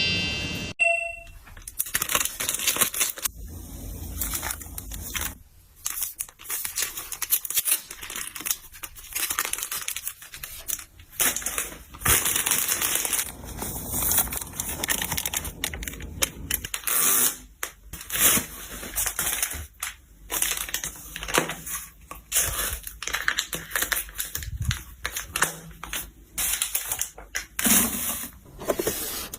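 Plastic packaging crinkling and tearing, mixed with irregular clicks and taps of containers and items being handled and set down.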